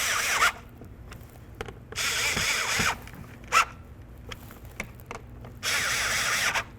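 A socket ratchet clicking rapidly in three bursts of about a second each, as a fastener is snugged up.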